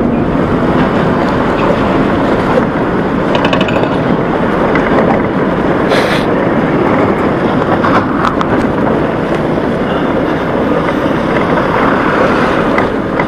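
Aprilia SXR 160 scooter on the move: a steady rush of wind on the microphone with the engine and tyre noise underneath.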